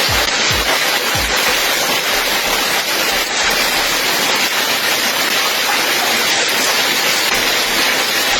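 Heavy rain pouring down in a storm, a steady, loud hiss.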